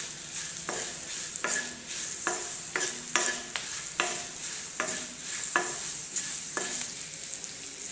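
Green chillies sizzling in oil in a metal kadai while a wooden spatula stirs them, scraping across the pan in repeated strokes, about one to two a second.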